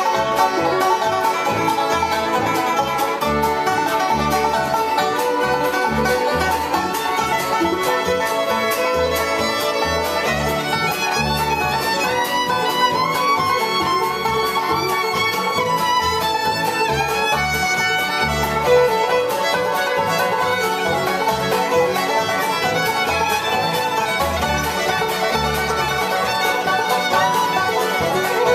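Live bluegrass string band playing: fiddle, banjo, guitar and upright bass, with a steady bass pulse under quick picking. The fiddle takes a sliding lead line through the middle.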